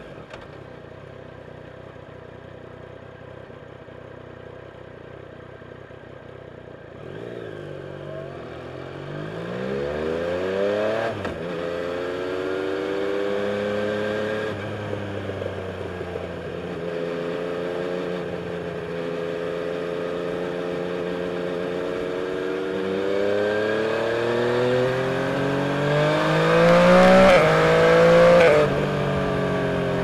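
Yamaha Tracer 900's three-cylinder engine, heard from on board while riding. It runs quietly at low revs, then the revs climb and drop back at a shift. It holds a steady cruise, then climbs again to its loudest near the end before falling away, with wind rush rising as speed builds.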